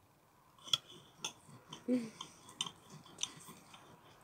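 Knife and fork clicking and scraping on a plate as grilled meat is cut, about six sharp irregular clicks, mixed with chewing. A short hum of a voice about two seconds in.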